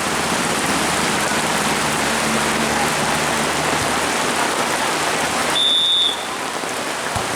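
Heavy rain falling steadily, hissing on the surfaces around. About six seconds in, a single short high whistle blast sounds over it.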